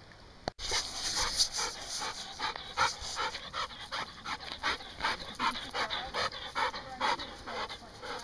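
Black Labrador retriever, wet from the river, panting hard and fast close up, about three breaths a second.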